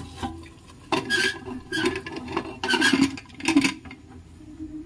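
Aluminium pressure cooker and its lid clattering as the lid is fitted and closed: about four short metal clanks and scrapes.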